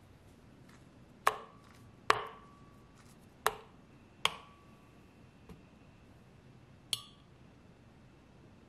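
Five sharp knocks on a glass blender jar, each followed by a short ringing tone from the glass, as pieces of banana are dropped into it.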